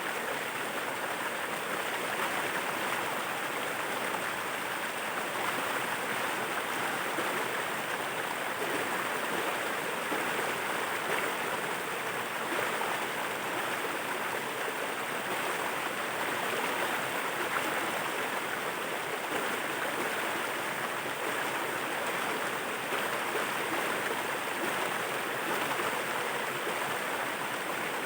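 Waterfall: a steady, even rush of falling water with no change throughout.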